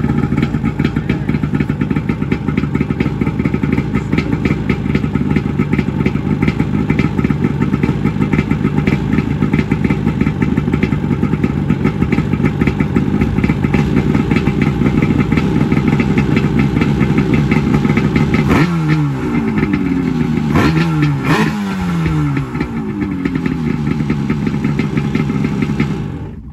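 Yamaha Wave Raider 760 jet ski's two-stroke twin engine running steadily on freshly rebuilt carburettors, blipped three times about two-thirds of the way through with the revs falling back after each, then shut off just before the end.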